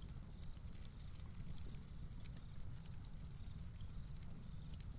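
Campfire crackling: scattered sharp pops and crackles over a low, steady rumble.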